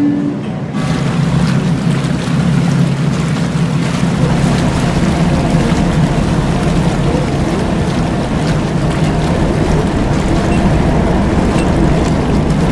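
A ferry's engines running under way, a steady low drone under a broad rush of churned water as the ship berths. Guitar music cuts off about a second in.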